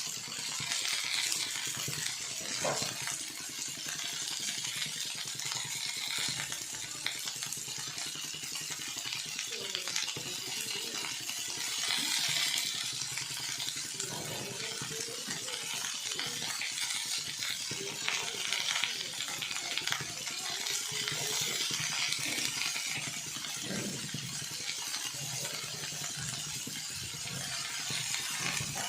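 Pan of mixed vegetables (potato, peas, onion, tomato) sizzling on the stove while a spoon stirs it, with an occasional knock against the pan.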